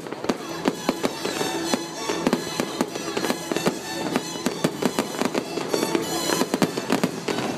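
Fireworks display going off in rapid succession, a dense run of sharp bangs and crackles several times a second, with music playing along underneath.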